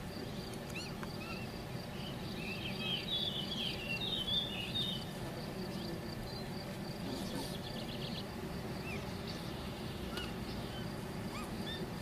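Bird chirps and a short warbling run of song, with a faint steady insect buzz over a constant background hiss of outdoor ambience.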